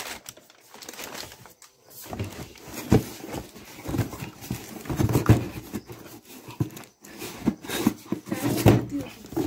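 Cardboard box and plastic wrapping being handled while a heavy water pump is unpacked: rustling plastic, cardboard scraping and irregular knocks and thumps as the box is tipped over, with a sharp knock about three seconds in.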